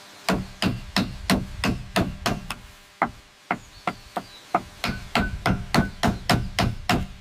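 A hand tool striking repeatedly in a steady rhythm, about three sharp blows a second, with a brief pause around three seconds in.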